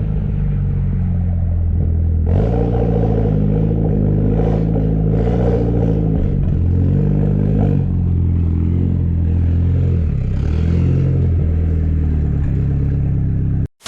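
Car engine running, its pitch shifting up and down as the revs change; it cuts off suddenly near the end.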